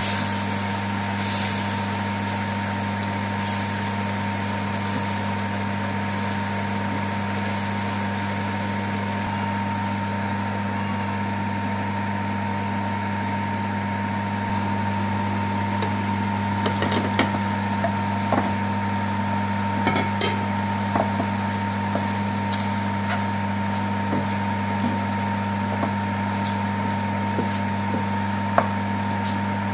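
Gravy sizzling in a frying pan while a wooden spoon stirs and scrapes it, over a steady low hum. In the second half there are scattered sharp knocks of the spoon against the pan.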